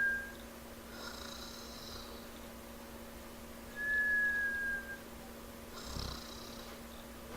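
Cartoon baby dragon snoring in a comic cycle. A short raspy snore about a second in and again about six seconds in alternates with a high, slightly falling whistle lasting about a second.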